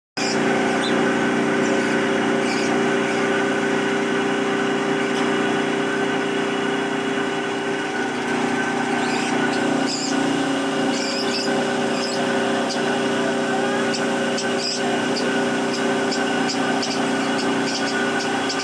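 A steady hum like a small motor running at a constant pitch, with short high-pitched sounds scattered through the second half.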